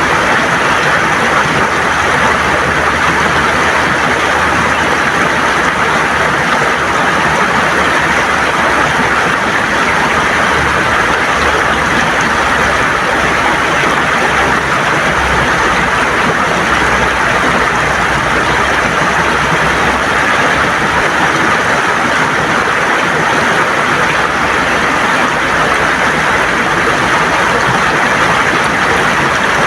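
A shallow river gurgling and rushing over smooth stones: a steady, even wash of water sound.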